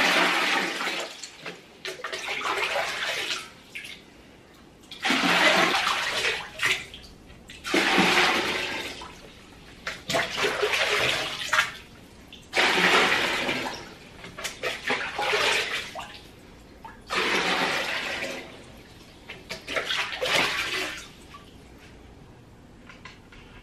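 Water splashing in repeated bursts of one to two seconds, about every two to three seconds, with quieter pauses between them.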